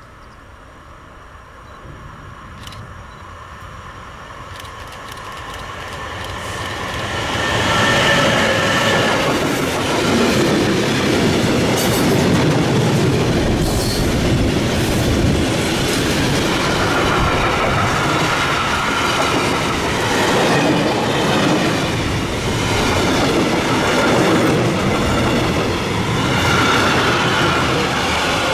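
Long freight train of tank and hopper wagons approaching and passing close by. It grows louder over the first several seconds, then runs as a steady rumble of wagon wheels on the rails, with clicks and high wheel tones at times.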